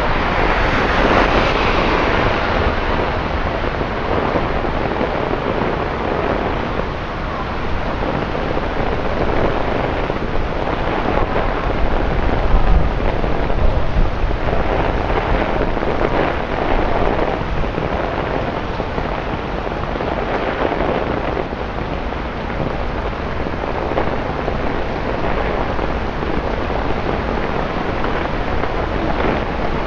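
Torrential rain pouring onto a wet city street and pavement, a dense steady hiss. At the start a passing vehicle's tyres swish through the standing water, fading within about two seconds, and there is a brief low rumble about twelve seconds in.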